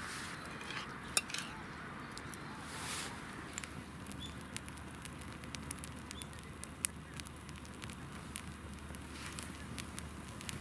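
Wood campfire crackling: scattered sharp pops and ticks over a steady low hiss, with louder pops about a second in and near seven seconds.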